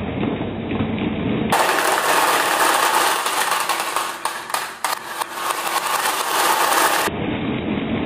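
Many glass marbles rolling down wavy grooves in a wooden track: a steady rolling rattle with many small clicks as the marbles knock together and drop into a plastic toy truck bed. The sound turns brighter and crisper about a second and a half in and goes back to a duller tone about seven seconds in.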